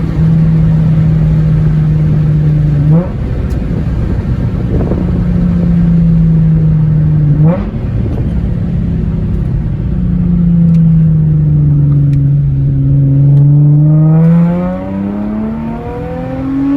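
Infiniti G35's 3.5-litre VQ V6 running loud through Z1 catalytic-converter-delete test pipes: a steady drone with two short rising blips, then the pitch climbing as it revs up near the end.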